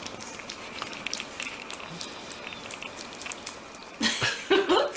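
A puppy lapping and smacking at soft food on a plate, making a quick, irregular run of small wet clicks. About four seconds in, a person's voice, louder than the lapping, starts up.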